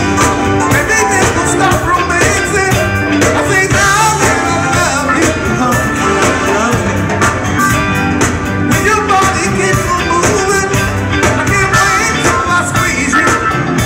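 Live funk and soul band playing a song with singing, drum kit, electric guitar and bass over a steady beat.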